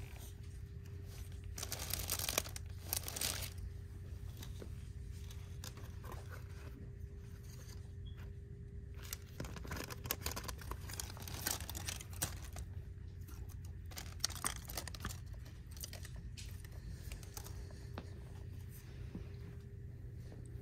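Plastic packaging on store merchandise crinkling and rustling as hands handle it, in irregular bursts, over a steady low hum.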